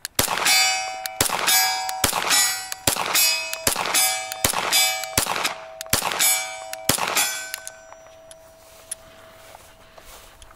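Glock 34 9mm pistol fired about ten times at a steady pace, a little under a second apart, each shot followed by the clang of a hit steel target ringing on. After the last shot, about seven seconds in, the ringing dies away.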